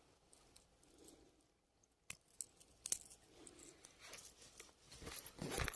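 Faint handling noise: a few sharp clicks and soft rustling, growing louder near the end.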